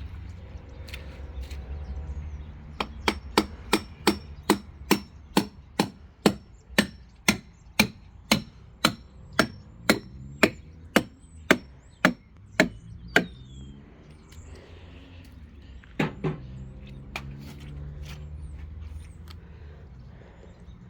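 Hammer blows at an even pace of about two a second, some twenty in a row, then a pause and two more, over a steady low hum. The hammering is an attempt to free something stuck on the sawmill.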